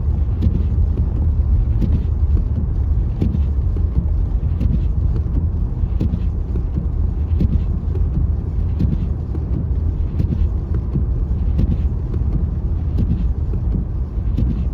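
Steady low rumble of a car's engine and tyres heard inside the cabin while driving slowly on a snow-covered road, with faint irregular ticks over it.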